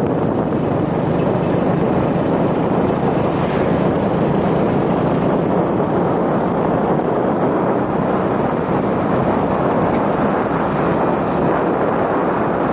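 Steady wind rushing over the phone's microphone on a moving vehicle, with a low engine and road noise underneath.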